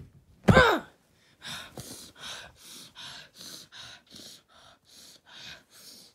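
A person's voice: a short loud cry falling in pitch about half a second in, then a run of short breathy gasps, about two or three a second.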